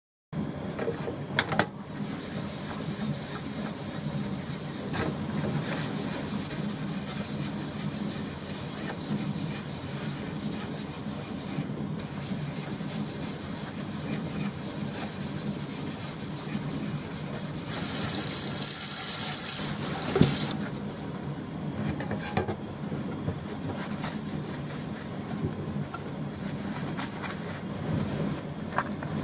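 Velleman K8200 3D printer running a job: stepper motors hum as the sharp metal rod it carries scratches along the ink-coated copper clad, with scattered clicks and a louder, brighter scraping stretch about two-thirds of the way through.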